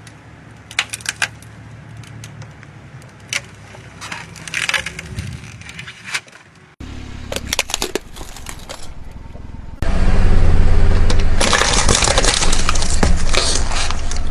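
Objects cracking and snapping as they are crushed, in sharp separate snaps. After an abrupt cut, from about ten seconds in, a loud low rumble comes in with dense crackling, like a car rolling over and crushing toys.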